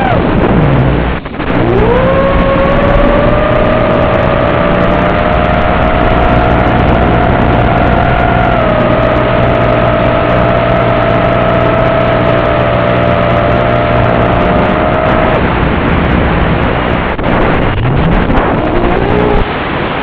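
Chameleon FPV quadcopter's motors and propellers whining over rushing wind and prop noise, heard from on board. The whine drops low as the throttle is cut, climbs again about a second in and holds steady, then stops about three-quarters of the way through, before the quad goes down, which the pilot puts to a bird strike, a failed rear prop or a failsafe. A brief rising whine follows near the end, then the sound drops to radio static as the video link is lost.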